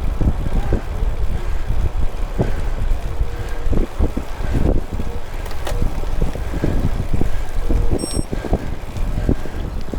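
Wind buffeting the microphone of a cyclist riding uphill, with the rider's heavy breathing coming through in short irregular surges. A brief high electronic beep sounds about eight seconds in.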